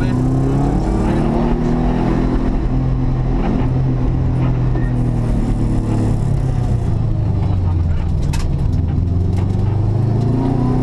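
Subaru Impreza rally car's turbocharged flat-four engine heard from inside the cockpit, revving hard and dropping back again and again through the gear changes, on a car running without third gear. A sharp knock about eight seconds in.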